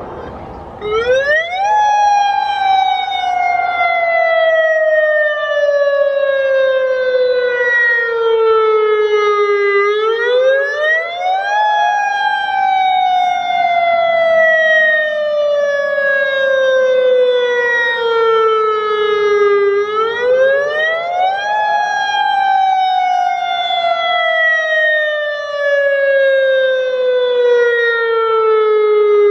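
AHAB tsunami warning siren sounding its wail in a test: the tone climbs quickly, then glides slowly down over about eight seconds, repeating about every ten seconds. It starts about a second in, runs three full cycles and begins a fourth near the end.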